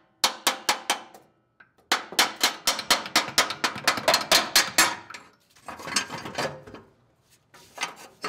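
A hammer tapping on a rusty exhaust Y-pipe flange at the exhaust manifold to loosen it, in quick runs of metal strikes about five a second. The tapping stops about halfway through, followed by a few quieter clunks of the pipe being handled.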